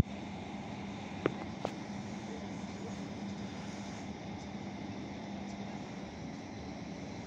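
SA139 diesel multiple unit at a distance, its engine giving a steady low hum over outdoor background noise. Two sharp clicks come a little over a second in.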